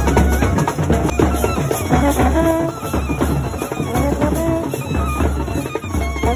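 Loud festive music: drums beating a steady, heavy rhythm with a melody line over it.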